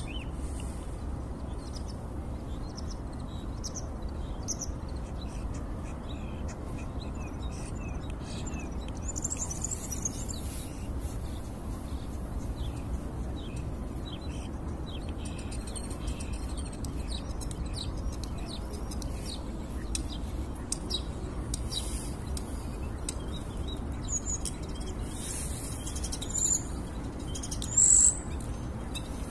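Starling singing: a long, varied run of quick clicks, chirps and whistles, with two louder high calls near the end, over a low steady background rumble.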